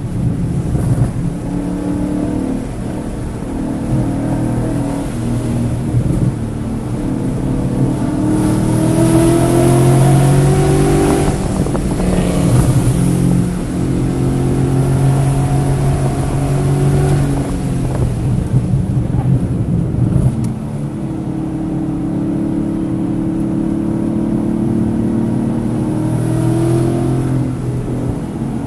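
Car engine running hard on a race track lap, its pitch climbing under acceleration, dropping sharply about eleven seconds in, holding, falling again near twenty seconds and then climbing once more. The engine was misfiring on cylinders 1, 3 and 4 during this session.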